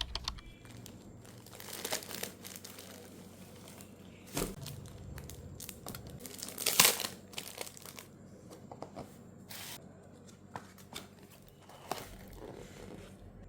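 Packaging being torn open and crinkled by hand: irregular rustles, rips and small taps, with the loudest burst about seven seconds in.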